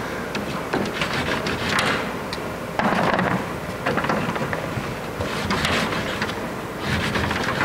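Chalk scraping and rubbing across a large drawing board in irregular strokes, some lasting about a second, with light taps of the chalk between them.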